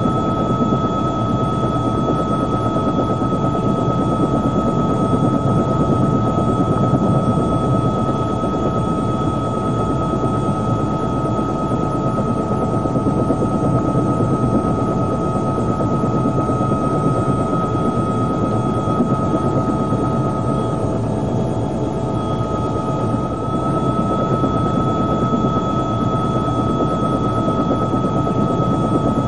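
Steady helicopter cabin noise: turbine and rotor drone with a constant high whine that drops away briefly about 21 seconds in.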